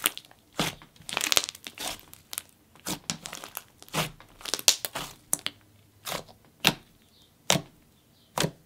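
Thick, glossy pink slime mixed with clay being squeezed, folded and poked by hand, giving irregular sticky snaps and bubble pops, about one or two a second.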